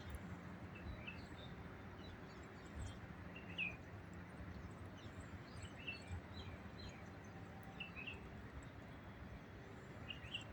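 Birds chirping, short high chirps scattered here and there, over a faint steady background noise.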